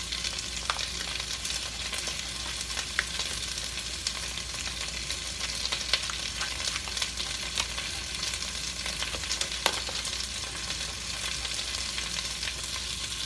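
Onions, green pepper and tomato paste frying in oil in a pot: a steady sizzle with scattered crackles and pops.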